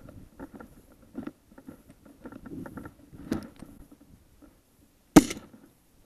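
Footsteps rustling through dry prairie grass and brush, then a single loud shotgun shot about five seconds in, fired at a prairie chicken.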